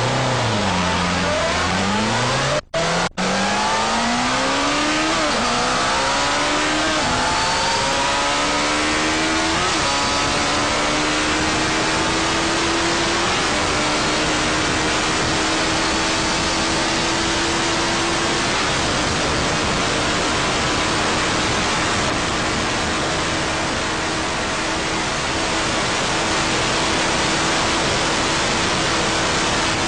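Sport motorcycle engine at full throttle, its pitch rising through the gears with a short dip at each upshift, then holding a nearly steady high note while the bike runs at very high speed, with loud wind rush throughout. The sound drops out briefly twice about three seconds in.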